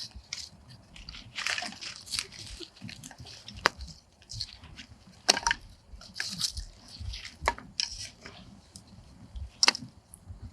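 Small fire of twigs and birch bark crackling in a pit, with irregular sharp pops and short bursts of snapping.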